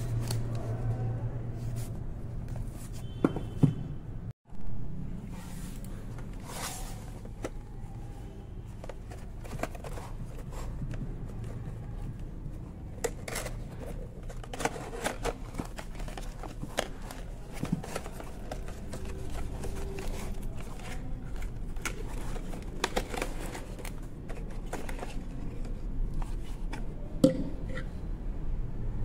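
Small cardboard boxes being handled and opened by hand: scattered rustles, scrapes and light taps, with a brief dropout about four seconds in.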